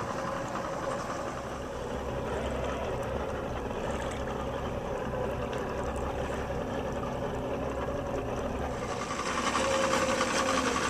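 Fishing boat's motor running steadily, a low drone with a hum, getting somewhat louder and brighter near the end.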